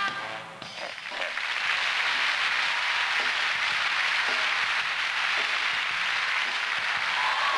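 A brass horn note cuts off right at the start. About a second later a theatre audience starts applauding steadily.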